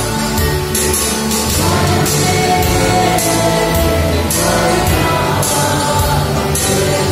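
Mixed choir of men's and women's voices singing a hymn together, in sustained held notes that change steadily.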